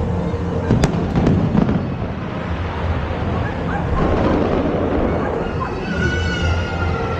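Aerial fireworks going off: a dense continuous rumble of bursts with sharp cracking bangs about a second in. A high, drawn-out whistling tone sounds near the end.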